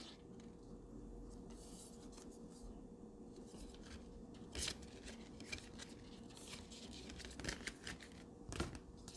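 Faint handling of thick cardstock greeting cards: a few short scrapes and taps as the cards are opened, turned over and slid aside, the clearest about halfway through and twice near the end.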